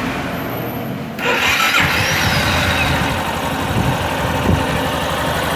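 Yamaha Fazer 250's single-cylinder four-stroke engine started on the electric starter, catching about a second in and running steadily. It runs without the tec-tec tapping, now that its cam chain tensioner has been repaired.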